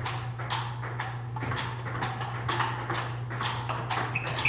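Table-tennis rally: the celluloid/plastic ball clicking off the bats and the table in a quick, uneven rhythm of about three hits a second, over a steady low hum.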